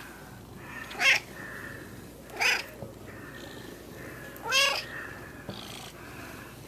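Domestic cat meowing three times, about a second in, at two and a half seconds and near four and a half seconds; the last meow is the longest. These are the insistent meows of a cat asking to be let outside.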